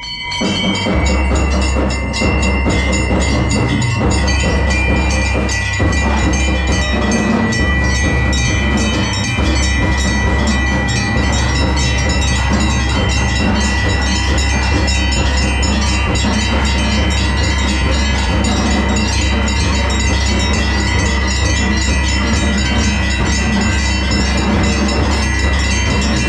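Temple bells ringing rapidly and without pause, a dense metallic clangour over a steady low rumble, as during the puja at the shrine.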